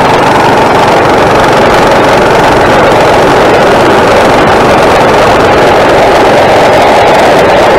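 Coleman mini bike's small single-cylinder four-stroke engine running steadily and loud under the rider.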